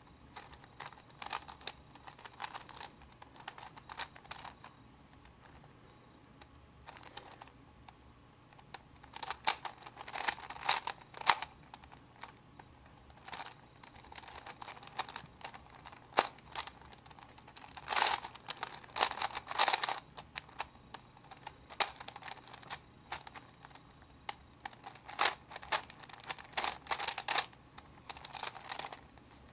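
A 4x4 Rubik's cube being turned by hand: irregular runs of quick plastic clicks and clacks as its layers are twisted, in bursts with short pauses between.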